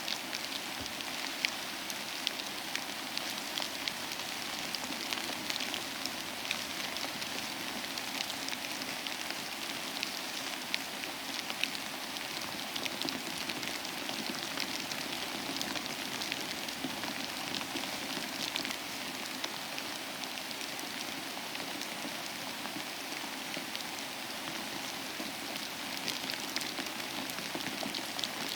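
Steady rain falling, a continuous even hiss with many small drop patters throughout.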